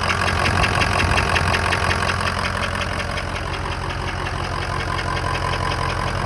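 2003 Ford F-250's 6.0-litre Power Stroke V8 diesel idling steadily with a soft knock, which the owner says sounds like air, on the right side near the alternator; a diesel mechanic traced it to the top of the engine by the injectors.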